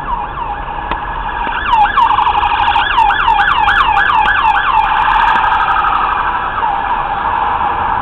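Emergency vehicle siren in a fast yelp, its pitch sweeping up and down about three times a second, loudest through the middle and settling toward a steadier tone near the end.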